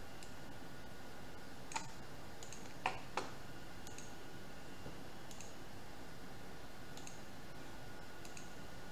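Scattered clicks of a computer mouse, the three loudest close together about two to three seconds in, over a steady background hiss.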